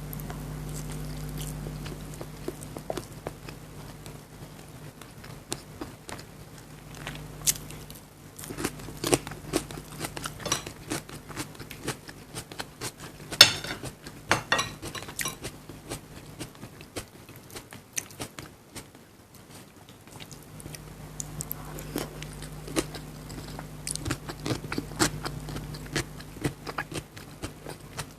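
Close-miked eating: chewing and biting with many small wet clicks and crunchy bites, one loud crunch about halfway through. A steady low hum runs underneath for part of the time.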